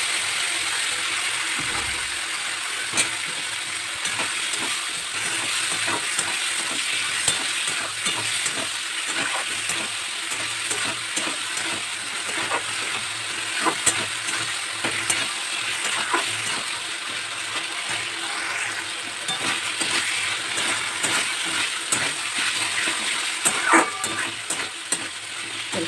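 Spice mix with tomato sizzling steadily in hot oil while a spatula stirs and scrapes it around the pan, giving frequent short clicks and scrapes. This is the masala being fried down before water goes in.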